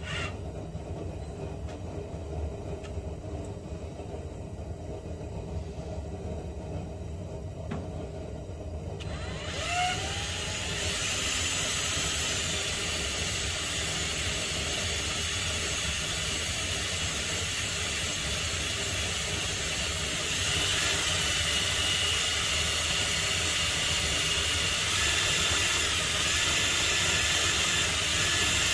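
The 2007 Honda Odyssey's front HVAC blower motor comes on about ten seconds in with a short rising whine as it spins up. It then gives a steady rush of air that steps up louder twice. The blower is running after a fix for its misbehaviour, which the owner says has worked.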